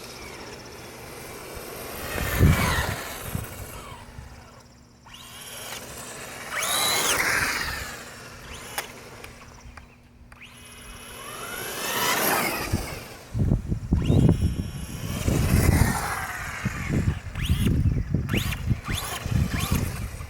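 Traxxas Slash 4x4 RC truck's electric motor and gear drivetrain whining up and down in pitch as it speeds up and slows, four times over. Low rumbling bouts come in the second half. This is the odd noise the owner is asking about, in a truck whose gears seem slow to engage.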